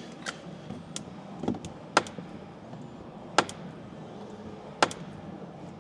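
Worn front door check on a Jeep Gladiator clicking as the door is swung, about six sharp clicks at irregular intervals. The wear is inside the door check.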